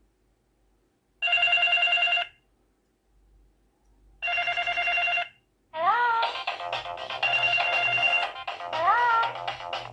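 Mobile phone ringtones: a fast-trilling electronic ring sounds twice, each about a second long, then about six seconds in a different, melodic ringtone with sliding notes starts and plays on.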